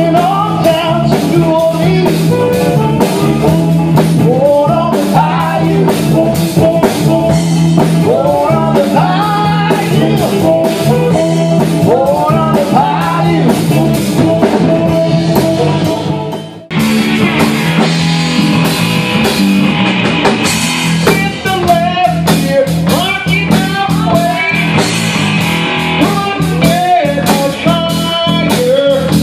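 Live rock band playing, with electric guitar, bass guitar and drums. The music breaks off abruptly about halfway through and cuts straight into another stretch of playing.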